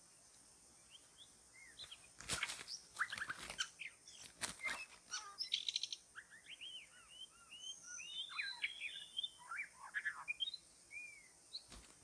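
White-rumped shama singing and calling: a busy run of varied whistles, slurred chirps and short trills, with a few harsh clicks in the first half. A steady high insect drone runs underneath.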